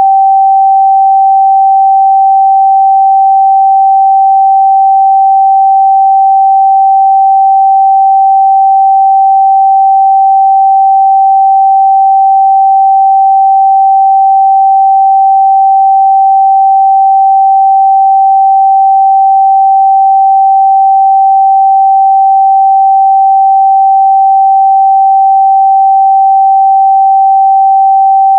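Pure 777 Hz sine test tone, one steady unbroken pitch at constant loudness, used to check a speaker's or headphones' response.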